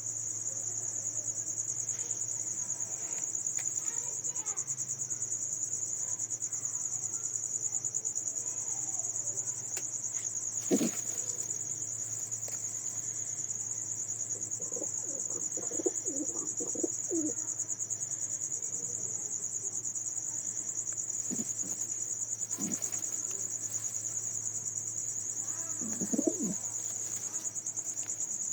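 Pigeons cooing in short low bouts now and then, over a steady high-pitched chirring of crickets.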